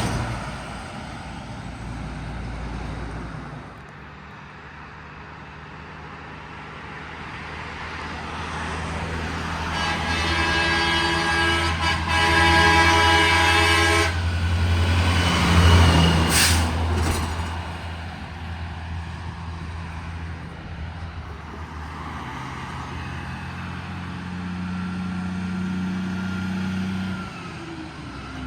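Heavy truck's diesel engine running as it goes by, with its air horn sounding two blasts of about two seconds each, about ten seconds in. A brief sharp hiss follows a couple of seconds later.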